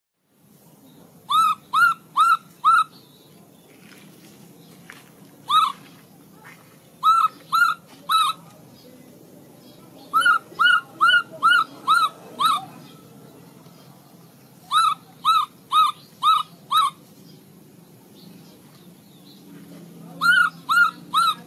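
Baby macaque calling in short high calls, each rising then falling in pitch, in runs of four to six at about two a second with pauses of a few seconds between runs.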